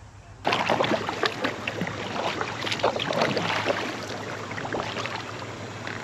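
Water splashing and lapping around a kayak on a river, a busy run of small irregular splashes and trickles that begins about half a second in.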